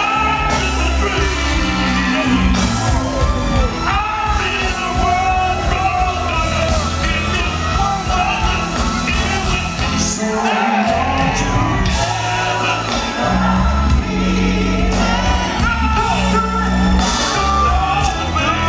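Live soul ballad performance: a male lead singer's vocal gliding over a full band with keyboards and a strong, sustained bass line.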